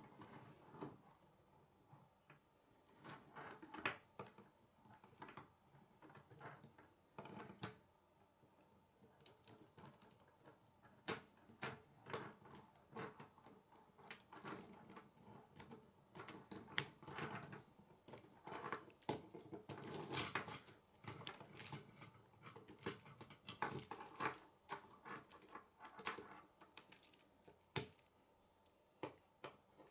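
Plastic K'nex rods and connectors clicking, snapping and rattling as they are handled and fitted together, in irregular sharp clicks with light knocks and handling rustle, busier in the second half.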